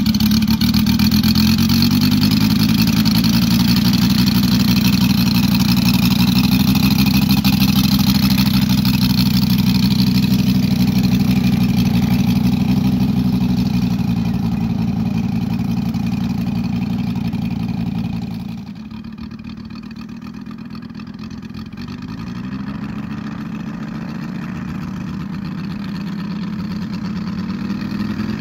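Engine and propeller of a large radio-controlled scale model of a Mitsubishi A6M Zero running at high revs, with a loud, steady drone. About two-thirds of the way through the sound drops suddenly to a quieter, more distant level. Near the end the engine's pitch rises steadily.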